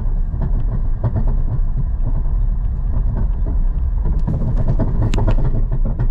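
Empty trailer rattling and clanking over a rough dirt road behind the towing vehicle, over a steady low road rumble heard from inside the cab. The rattle comes from the trailer running light, with no load on it.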